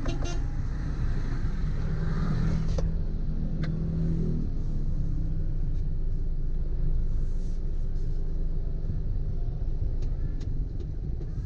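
Steady low rumble of a vehicle travelling on the road, with an engine hum that swells from about two to four seconds in, and a few faint clicks.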